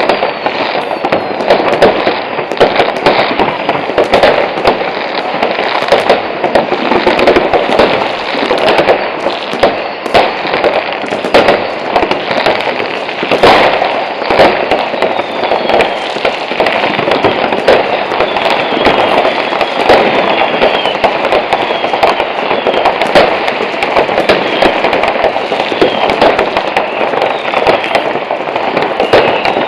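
New Year's Eve fireworks and firecrackers going off all over a town: a dense, unbroken barrage of overlapping bangs and crackling, with faint falling whistles in the second half.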